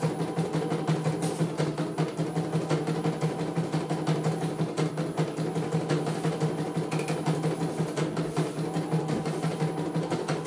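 CNY E900 computerized embroidery machine test-stitching a design: the needle bar runs in a rapid, even rhythm over a steady motor hum.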